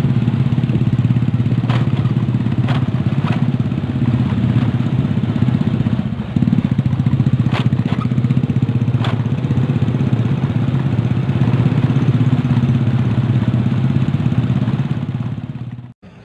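Small motorcycle engine running at riding speed, heard from on the bike with road and wind noise, plus a few light clicks. The engine sound dips briefly about six seconds in, then fades and cuts off near the end.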